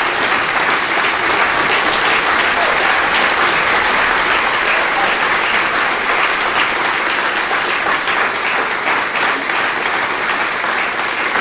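A large audience applauding steadily, sustained clapping from many hands.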